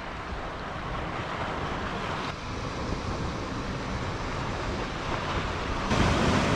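Sea surf washing against a rocky shore, mixed with wind noise on the microphone, as a steady rushing hiss that swells suddenly near the end.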